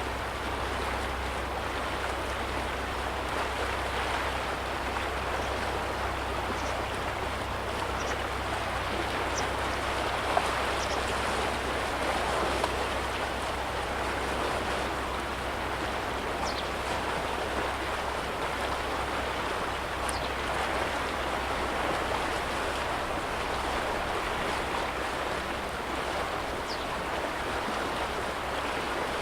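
Small waves lapping steadily against the lakeshore, an even wash of water with a few faint high chirps over it.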